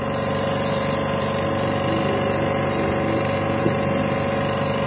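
8mm film projector running, a steady hum with a fast, even clatter from its film transport.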